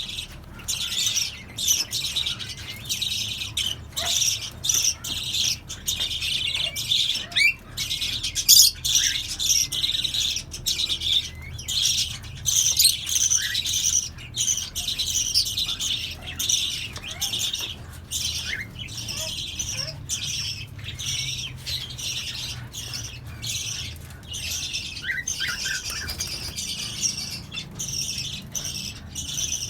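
A mixed flock of Fischer's lovebirds, cockatiels and budgerigars chattering, with a dense, unbroken stream of high chirps and sharp squawks.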